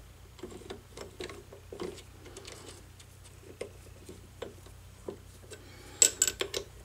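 Small metal grease-fitting parts handled by hand at a lathe: light metallic clicks and rubbing, with a quick run of sharper clicks about six seconds in.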